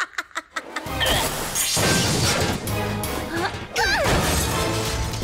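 Animated-film sound effects over dramatic music: a run of rapid sharp clicks, then a sudden loud crash and clatter about a second in as a rig of studio stage lights comes down, with a second loud burst near the end.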